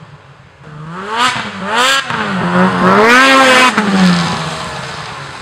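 A 2013 Ski-Doo Freeride 800 E-TEC two-stroke snowmobile with an aftermarket MBRP race can, revving twice as it comes up, then passing loudly with its pitch rising and dropping, and fading as it pulls away up the trail.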